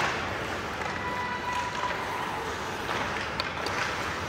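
Ice hockey game play: a steady wash of skates scraping on the ice, with a few sharp clicks of sticks and puck.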